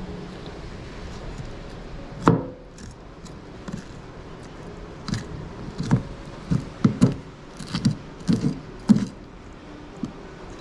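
Knife and fish knocking and clicking against a plastic cutting board while the gills of a whole scorpionfish are cut and pried out: one sharp knock about two seconds in, then a quick run of about a dozen clicks and knocks near the end.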